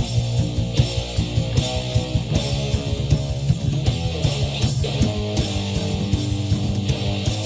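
Background music: rock with distorted electric guitar and a steady beat.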